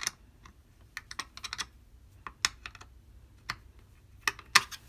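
Small metal screwdriver tool clicking and tapping against a screw and the plastic base of a desk lamp as the screw is tightened: irregular sharp clicks, the loudest near the end.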